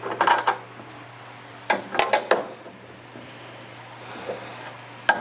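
Hand tools clinking: a ratchet, socket and extension being handled and fitted. There are a few sharp metallic clinks near the start, a quick cluster about two seconds in and one more near the end, over a steady low hum.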